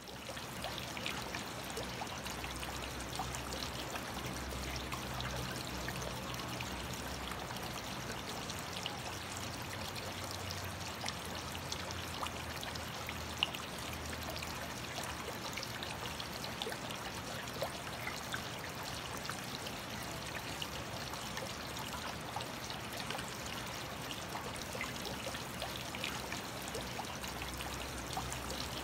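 Aquarium water bubbling and trickling steadily, with scattered small ticks and a low hum underneath.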